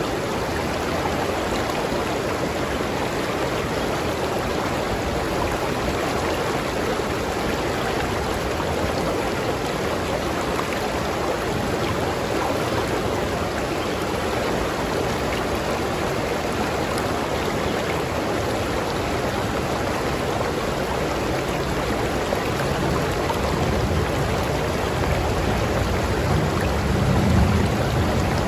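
River water flowing over rocks in a steady rush. A deeper low rumble swells in from the latter part and peaks near the end.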